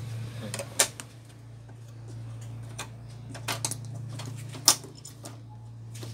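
Scattered light clicks and taps of parts being handled on a disassembled LED TV backlight panel, a black metal frame rail and a marker being picked up and set down. The sharpest tap comes a little past halfway, all over a steady low hum.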